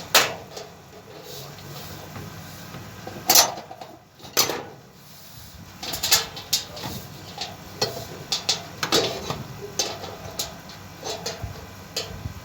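Metal parts and screws of a satellite dish clinking and knocking as they are handled and fitted together: irregular sharp clinks, a few strong ones in the first half and a quicker string of lighter ones in the second half.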